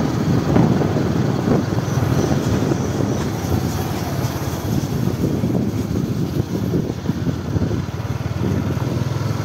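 Motorcycle engine running steadily while riding along a street, with wind rumbling on the microphone.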